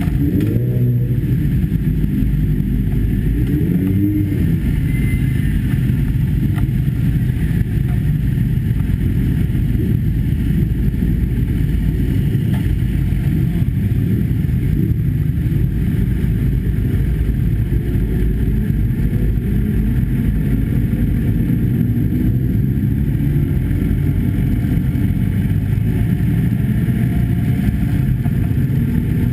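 Sport motorcycle's engine running at low revs, picked up close by a camera mounted on the bike, as the bike rolls slowly out of the garage and down the pit lane. The revs rise briefly near the start and again near the end.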